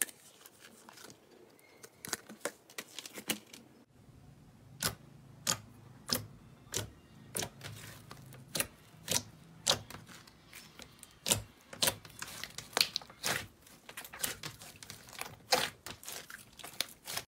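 Slime being stretched, folded and pressed by hand, giving off irregular sharp clicks and pops, a few to several a second, over a faint low hum.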